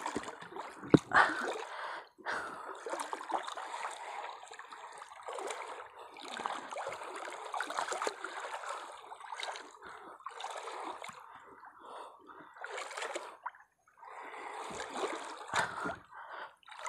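Shallow seawater splashing and trickling close by, unevenly, with a sharp click about a second in.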